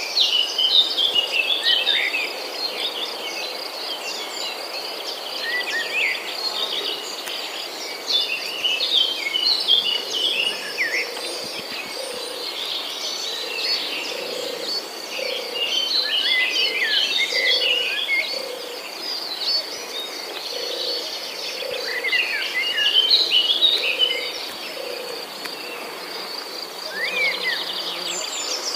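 Insects trilling steadily at a high pitch, with many birds chirping and whistling over them. A low call repeats about once or twice a second through the middle of the stretch.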